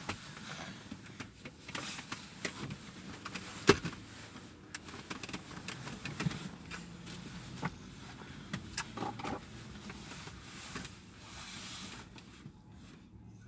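Car interior noise with traffic passing outside: a steady low rumble broken by scattered small clicks and taps, with one sharp click about four seconds in.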